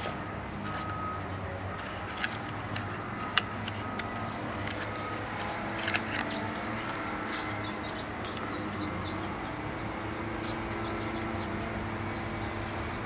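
Steady low background hum, with a few faint clicks and brief faint high tones in the first half.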